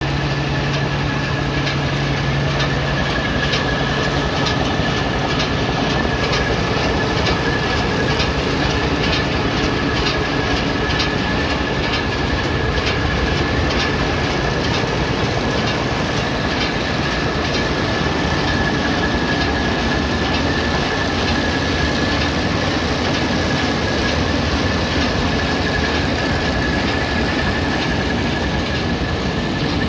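Engine-driven farm machinery running steadily, with a steady high whine over the engine noise and a run of light, regular ticks.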